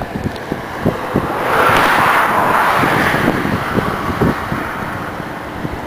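Wind buffeting the microphone, with scattered low thumps and a louder rush of noise that swells and fades over about two seconds, a second and a half in.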